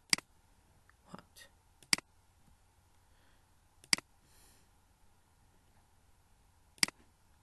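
Computer mouse clicking: four sharp single clicks, spaced two to three seconds apart, with a few fainter ticks between them.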